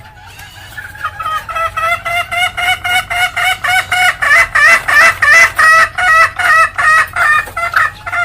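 Junglefowl hen cackling ('ngekek'): a fast, loud run of sharp 'kek' notes, about four a second, building in loudness over the first few seconds.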